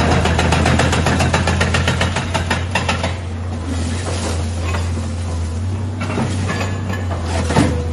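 Excavator engine running steadily while its arm breaks up a brick-and-concrete rooftop: a rapid, even run of clattering knocks for about the first three seconds, then more bursts of clattering rubble around the middle and near the end.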